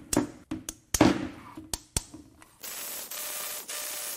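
Sharp metal clicks and knocks of hand tools and parts being handled on a bare aluminium engine block, then a steady hiss from a little past the middle, with a brief break.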